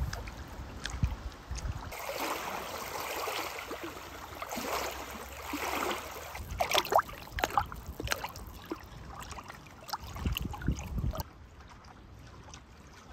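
Small waves lapping and splashing against a pond shore, with gusts of wind rumbling on the microphone about ten seconds in and a few sharp clicks and splashes around the middle.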